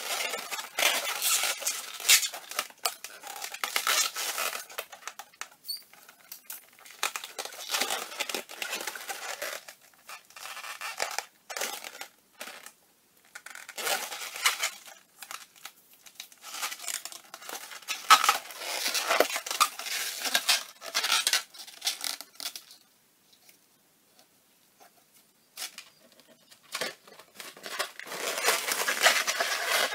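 260Q latex modelling balloons squeaking and rubbing in irregular bursts as they are twisted and bent by hand, with a lull of a few seconds before the last stretch.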